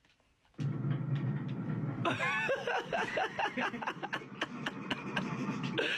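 A person snickering and chuckling, starting about two seconds in, over a steady noise that begins about half a second in.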